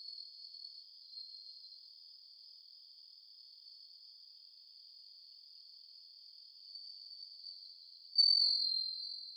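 Crickets trilling in a steady, high, unbroken chorus. About 8 seconds in, the trill suddenly becomes louder for a moment.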